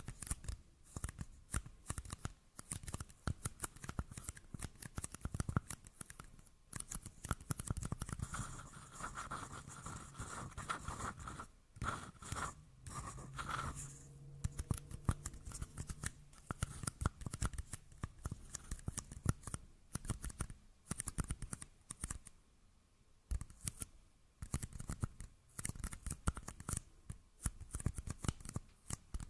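Fingernails tapping and scratching on two small plastic cups held close to the microphone: a dense run of rapid crackly clicks, with a brief pause about three-quarters through.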